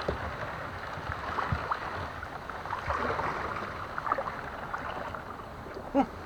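Kayak afloat on a lake: water lapping against the hull, with a few small knocks and rustles.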